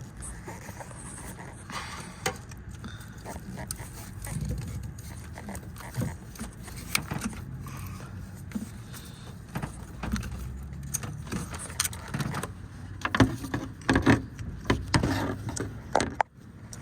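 Scattered clicks, rattles and scrapes of pliers and hands working spark plug wire boots loose in a V8 engine bay, over a low steady hum. The handling gets busier and louder near the end.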